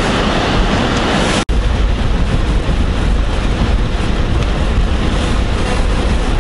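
Steady road and engine noise inside a moving car's cabin, a low rumble under a hiss. It cuts out for an instant about a second and a half in, then goes on with a heavier low rumble.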